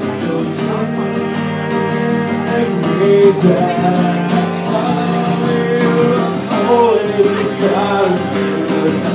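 Acoustic guitar strummed steadily, with a man singing over it in phrases about three seconds in and again near seven seconds.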